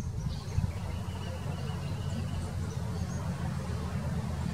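A steady low background rumble, with faint, thin high-pitched bird calls over it.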